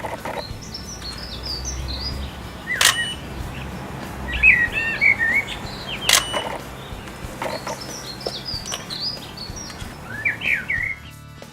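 Small garden birds chirping and twittering in several short bursts of quick notes, with two sharp clicks about three and six seconds in.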